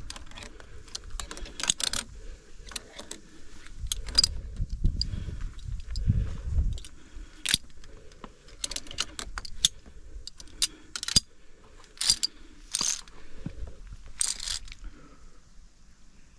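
Via ferrata lanyard carabiners (Edelrid Cable Kit Lite) clinking against each other and the steel cable: scattered sharp metallic clicks and jingles, a few ringing briefly near the end, over a low rumble about four to seven seconds in.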